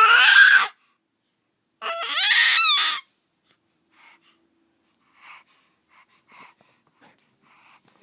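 A baby letting out two loud, high-pitched squeals. The first rises in pitch and stops within the first second; the second, about two seconds in, wavers in pitch. After that come only soft breaths and small gasps.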